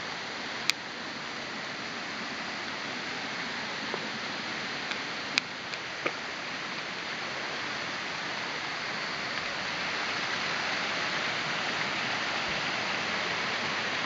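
Small waterfalls spilling over rock ledges into pools, a steady rush of water that grows a little louder about ten seconds in. A few brief sharp clicks stand out in the first six seconds.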